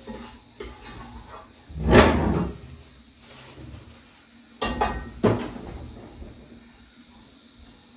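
A heavy thump about two seconds in, then two sharp knocks with a short ring just over half a second apart, around five seconds in. These are kitchen knocks and bangs.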